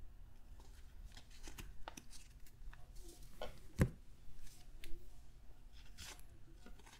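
Baseball cards flipped one at a time in the hands: faint slides and flicks of card stock against the stack, with a sharper snap just past halfway.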